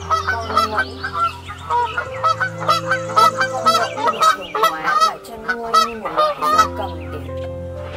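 A flock of Canada geese honking, many short calls overlapping, which stop about a second and a half before the end.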